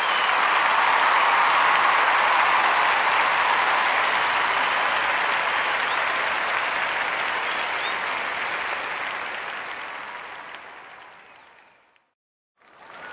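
Steady crowd applause, a dense din of clapping that fades away to a brief silence near the end and then fades back in.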